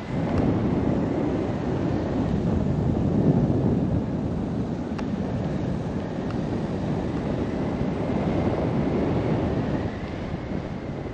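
Airflow buffeting the microphone of a paraglider in flight: a steady, gusty rush of wind noise, strongest in the low range.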